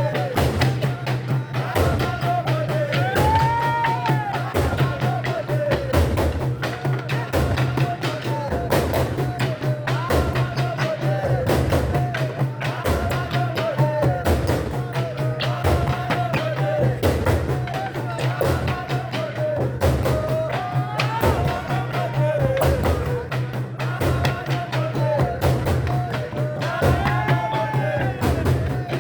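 Music of African drumming: fast, dense drum strokes under a melody line that rises and falls in arcs, over a steady low tone.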